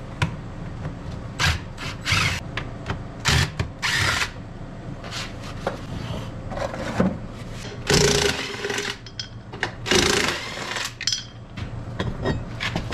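Cordless drill running in several short bursts and then two longer runs, spinning out bolts while the rear differential is taken off a Kawasaki Prairie ATV's axle.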